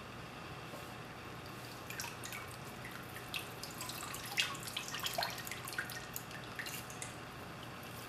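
Liquid dripping and splattering into a plastic tub as a hand squeezes a wad of soaked oil-absorbent material, in scattered drips that come thickest from about two seconds in, over a low steady hum.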